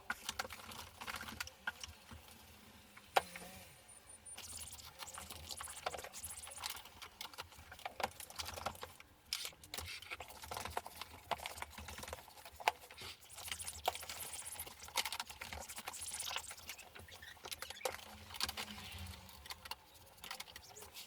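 A dry cloth rubbing and buffing over the casing of a 1981 Electrolux Z355 cylinder vacuum cleaner: irregular rubbing strokes with small clicks and knocks scattered throughout.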